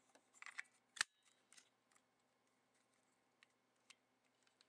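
Small plastic clicks and rattles from a toy Lockseed padlock being handled, with one sharp snap about a second in, then a few faint ticks.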